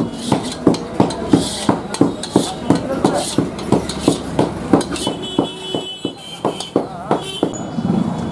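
Rhythmic hammer blows, about three a second, from gajak being beaten by hand, ending shortly before the end.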